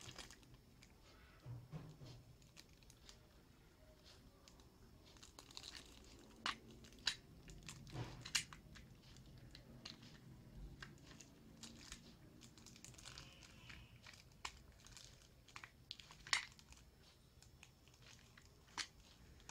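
Faint crinkling of a plastic packet with scattered light clicks and taps as a small plastic handheld sewing machine is handled.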